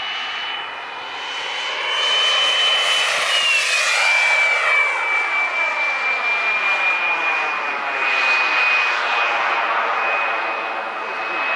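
An RC model jet's small gas turbine whining in flight over a broad rushing exhaust noise. The whine drops in pitch about four seconds in, where the rush is loudest as the jet passes, and then holds steady.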